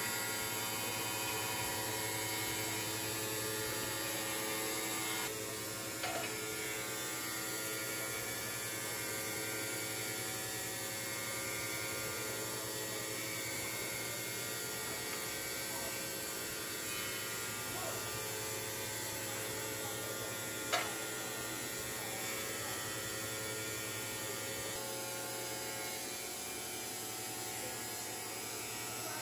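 Automatic three-blade CNC ceramic tile cutting machine running, its electric blade motors giving a steady hum. There is a short click about six seconds in and a single sharp knock about 21 seconds in.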